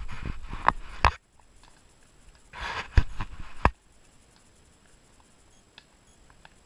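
A horse's hoofbeats for about a second, cutting off suddenly. Around the middle comes a short breathy snort with a couple of sharp clicks, then near quiet.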